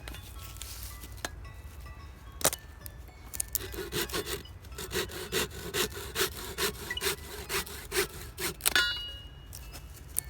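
Hand saw cutting a long piece of gathered firewood into smaller lengths: quick back-and-forth strokes, two to three a second, from about three and a half seconds in, ending in a sharp crack near the end. A single knock comes about two and a half seconds in.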